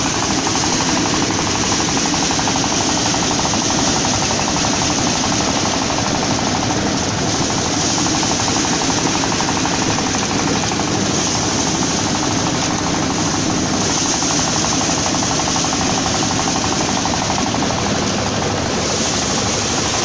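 Motorised rice-paddy thresher running steadily under load as bundles of paddy are fed in, a loud, even, rapid mechanical chatter from its engine and spinning drum.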